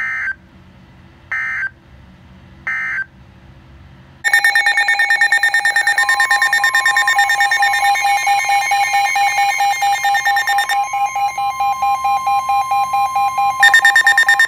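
Emergency Alert System data tones: three short, evenly spaced screeching bursts, the end-of-message signal after a warning, then about four seconds in a loud, rapidly pulsing alert tone starts, with a second pitch joining a couple of seconds later and the pattern changing twice near the end.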